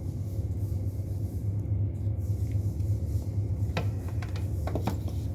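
Steady low rumble, with a handful of short, sharp clicks in the last second and a half as a small tool works at the pins of a shorting plug connector.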